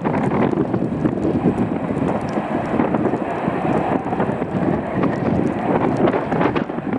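Wind buffeting the microphone: an uneven, rumbling rush with no steady tone.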